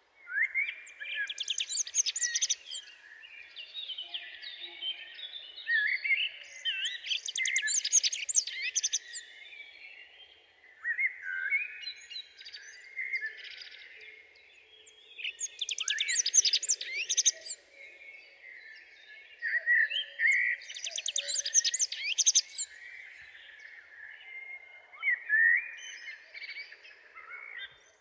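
A songbird singing: six loud phrases of warbling notes and fast trills, each a second or two long, a few seconds apart.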